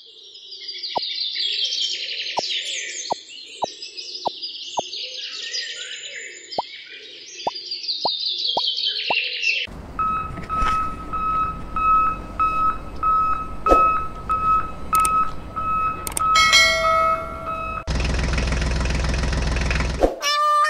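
Birds chirping with a regular sharp ticking for about the first ten seconds. Then a steady mechanical rumble with a high beep repeating about twice a second. It ends in a loud buzzing drone lasting about two seconds.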